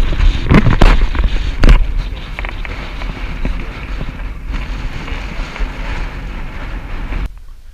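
Wind buffeting an action camera's microphone: a loud, gusty rumble with a few sharp knocks in the first two seconds, cutting off suddenly near the end.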